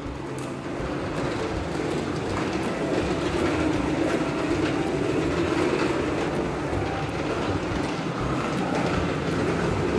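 Wheeled suitcase rolling along a hard corridor floor, a steady rumble with a light clatter from the wheels.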